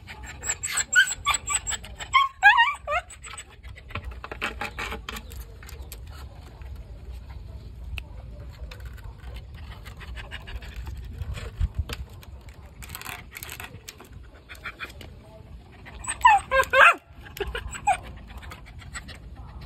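A dog whining in short, high-pitched whimpers, one cluster in the first three seconds and another around sixteen to seventeen seconds in, as it strains to squeeze through a gap too narrow for it.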